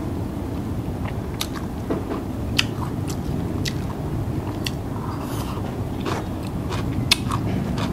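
Close-miked chewing of crunchy food, a mouthful of green mango and cucumber salad with fried dried snakeskin gourami, with scattered sharp crunches.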